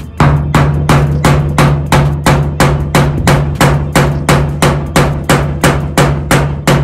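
Hammer striking a wooden block held on a 1967 Pontiac Firebird's new steel roof panel, in an even rhythm of about three blows a second. The blows knock down a high spot and shape the panel's radius.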